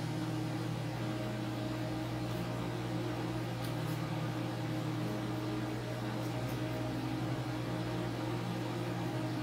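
Steady low electrical or machine hum with a faint hiss underneath, unchanging throughout.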